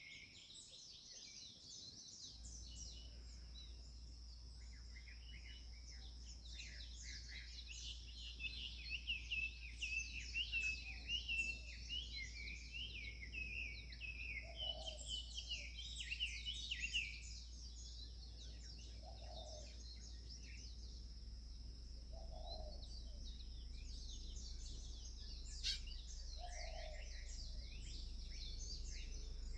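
Morning chorus of several birds chirping and twittering, densest in the middle. From about halfway through, a lower call repeats every three to four seconds. A steady high hiss runs underneath, and a faint low hum comes in a couple of seconds in.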